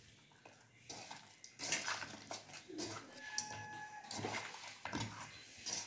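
A hand mixing spice-coated rohu fish pieces in a metal bowl: soft, wet squelching and rustling, with light knocks of the fish against the side of the bowl.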